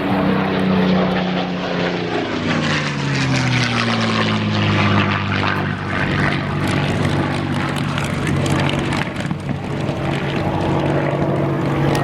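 Radio-controlled model propeller airplane flying, its engine note falling over a few seconds and then holding steady.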